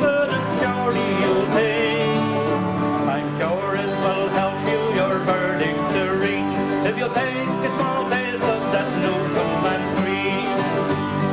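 Several acoustic guitars strumming an instrumental break between verses of a folk song, with a wavering lead melody line above the chords.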